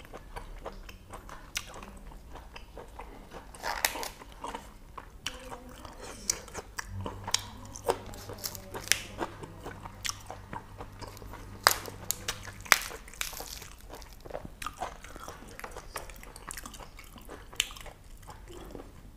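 A man chewing and biting boiled pork intestines with crisp lettuce leaves: irregular sharp crunches throughout, the two loudest about twelve seconds in. A faint low hum runs under it for a few seconds in the middle.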